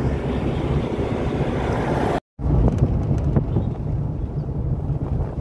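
Steady engine and road rumble with wind noise inside a moving vehicle, with a few faint rattles. The sound drops out to silence for a split second about two seconds in.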